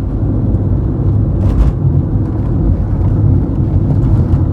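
Car driving along a road: a steady low rumble of road and engine noise, with a brief knock about a second and a half in.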